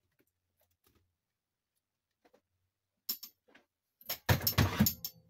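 A few faint clicks, then about four seconds in a loud burst of clattering and rustling lasting about a second.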